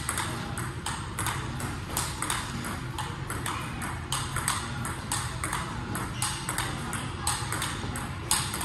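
Table tennis rally: a celluloid-type ball clicking off two players' bats and bouncing on the table, a few crisp ticks a second in an even rhythm, over a low steady hum.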